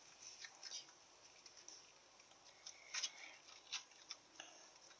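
Faint, scattered clicks and small pops of slime being handled and stretched, a few louder pops near the end.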